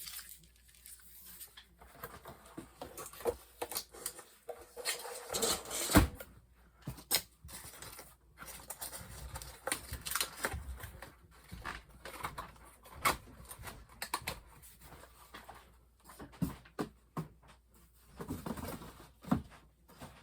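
Handling noises of boxed ceiling fan blade sets being moved about: irregular clicks, knocks and rustling of cardboard and packaging, with one sharper knock about six seconds in.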